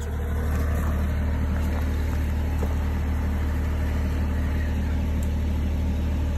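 Diesel engine of a JCB 3CX backhoe loader running steadily at a constant, even speed.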